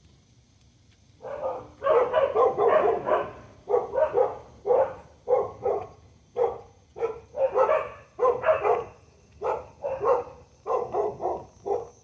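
A dog barking repeatedly, starting about a second in, in runs of quick barks separated by short pauses.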